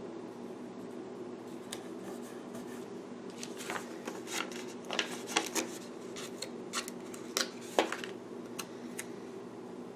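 Paper and sticker handling: scattered soft rustles and light clicks as planner date-cover stickers are peeled and pressed onto a planner page, mostly in the second half, over a steady low hum.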